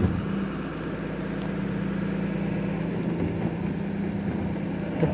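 Garbage truck engine idling with a steady, even hum.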